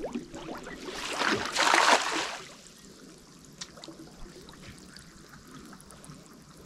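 Water splashing in a brief rush about a second in, lasting a little over a second, then faint trickling and dripping.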